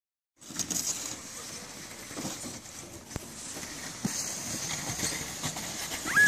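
Faint children's voices over a steady outdoor hiss, with one sharp knock about three seconds in.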